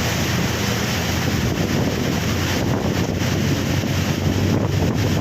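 Rain falling steadily, a dense, even hiss with no letup.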